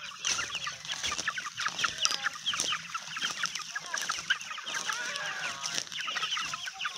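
A flock of 12-to-14-week-old chickens, mostly black Jersey Giants, calling together: many short, overlapping chirps and clucks without a break.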